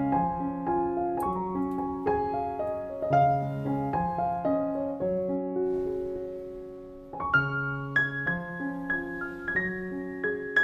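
Background piano music: a gentle melody over chords, which fades about seven seconds in, then starts again.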